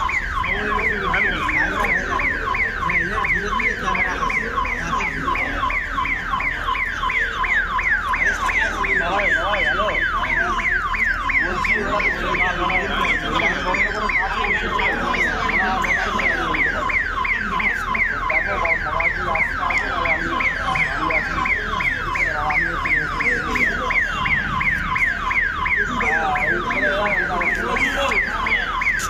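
Electronic warning siren sounding without a break: a fast series of rising whoops, about three a second, with crowd voices underneath.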